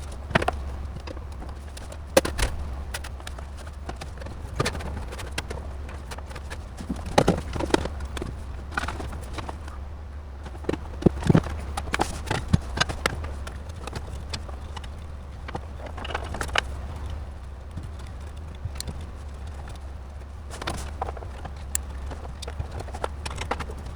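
Irregular clicks and knocks of hard objects being handled, a few louder ones around a third and half of the way through, over a steady low hum.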